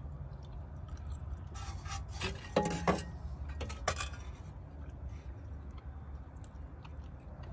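Rusty stamped-steel bracket being lifted out of a car's engine bay, clinking and scraping against the surrounding metal parts in a short burst of knocks about two to four seconds in. A steady low rumble runs underneath.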